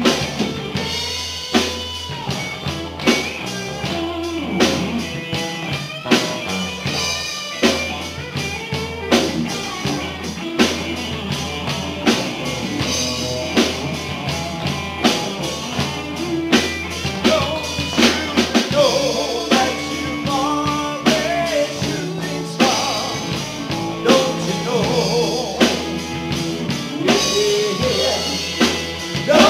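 Live rock band playing an instrumental break: an electric guitar plays a lead line with bent notes over a steady drum beat and bass.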